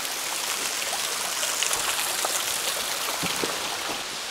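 Water dripping from a mine tunnel's roof: a dense, rain-like patter of drops over a steady hiss of running water.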